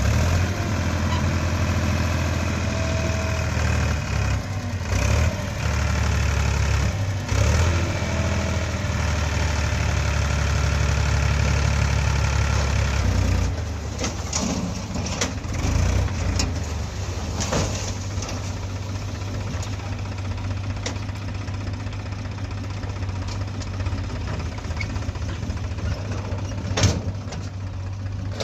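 Diesel engine of a JCB 3DX backhoe loader running while it digs and loads. It works harder for the first half, then eases off, with scattered metallic knocks and one sharp clank near the end.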